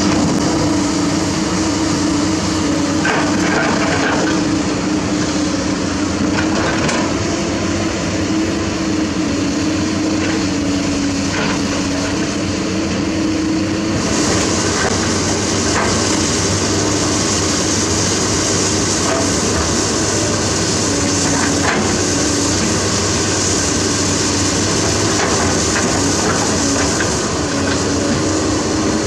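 Diesel engines of a Komatsu PC200 hydraulic excavator and a dump truck running steadily, with a wavering engine hum and occasional metallic clanks and knocks. A brighter hiss comes in about halfway.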